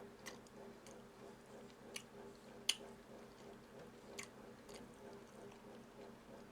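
A person chewing food, with a string of short wet mouth clicks, the sharpest about two and a half seconds in. A faint steady hum sits underneath.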